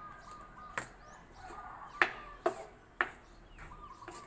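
Spatula knocking and scraping against a cooking pot while fried rice is stirred: about five sharp clacks at uneven intervals, the loudest about two seconds in.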